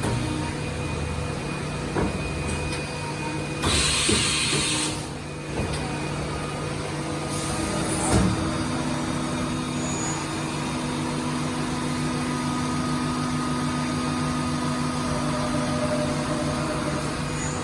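Hitachi VM40II CNC vertical milling machine running with a steady machine hum, a short hiss of air about four seconds in, and a single knock about eight seconds in, after which the hum takes on a new steady pitch.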